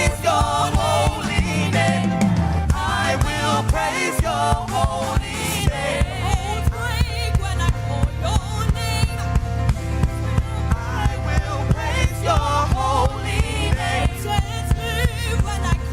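Gospel worship music: voices singing with a band, and a drum kit keeping a steady beat.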